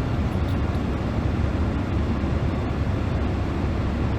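Steady low rumble of a car's cabin noise: road and engine drone with no distinct events.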